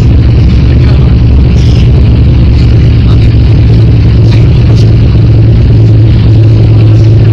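Loud, steady low drone of a vehicle engine running while driving through floodwater, heard from inside the vehicle.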